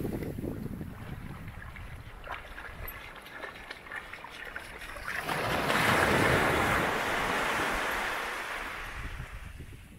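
Sea waves breaking on a sandy beach, with wind gusting on the microphone. About halfway through, a wave swells up into a loud rush of surf that then slowly fades.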